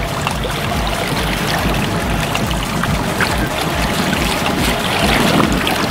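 Wind rumbling on the microphone over the steady wash of water along the side of a trolling boat.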